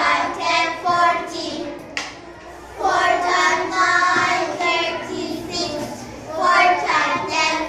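A class of young children singing the four times table together in unison, in phrases with a short pause about two seconds in. A single sharp click comes at the start of that pause.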